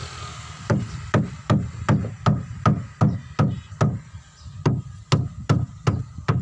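Hammer blows struck in a steady rhythm, about two and a half a second, with a short pause about four seconds in.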